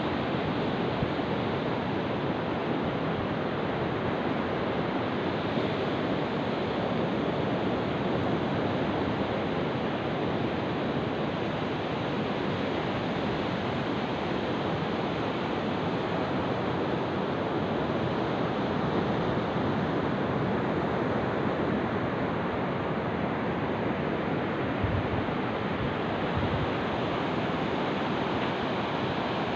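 Steady rush of surf breaking and washing up a sandy beach. A brief low buffet of wind on the microphone comes near the end.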